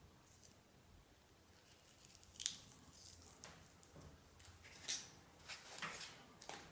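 Handling of small objects and packaging during an unboxing: faint rustles and light clicks, with a sharper click about two and a half seconds in and another near the middle, then a few more smaller clicks.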